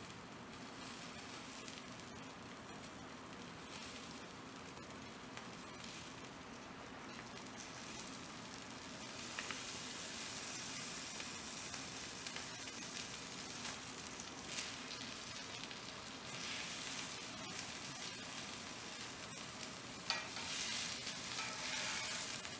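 Wagyu beef steak sizzling as it fries, a steady hiss that grows louder about nine seconds in, with a single sharp click near the end.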